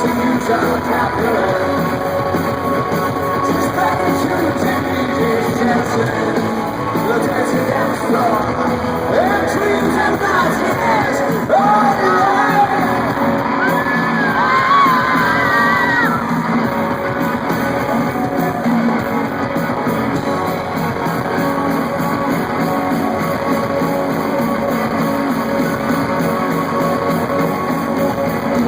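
Live rock band playing in a large arena: electric guitars and drums, with singing and yelling voices over the music.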